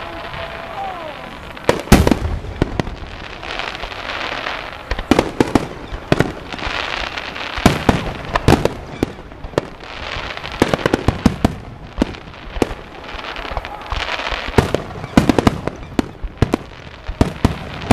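Aerial firework shells bursting over and over: sharp bangs in quick clusters every second or two, each cluster followed by crackling.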